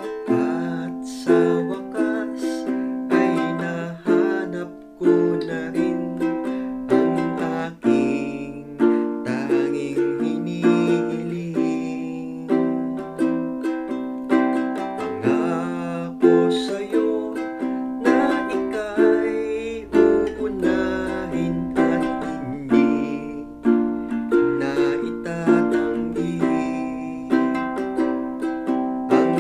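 Ukulele strummed in a steady rhythm on a down, down-down-up-up-down strum pattern, moving through F, C, Bb and Dm chords.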